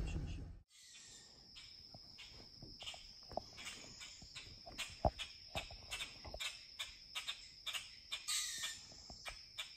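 Steady high-pitched insect trill, with a rapid run of short clicks and crackles over it, about three a second. In the first second a low rumble cuts off abruptly.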